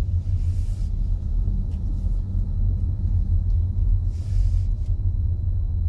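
Steady low rumble that wavers in loudness, with little above it.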